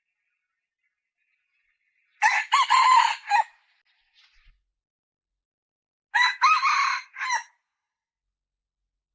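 Red junglefowl calling twice, about four seconds apart, each call a short run of about four clipped pitched notes lasting just over a second.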